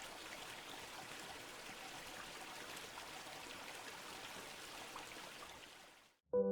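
Soft, steady running water like a trickling stream, fading out near the end. A sustained music chord comes in just at the very end.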